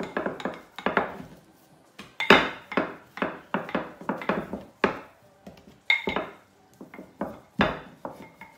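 Wooden rolling pin rolling back and forth over bao bun dough on a wooden worktop: a run of short rumbling strokes and knocks, several a second, with brief pauses between some.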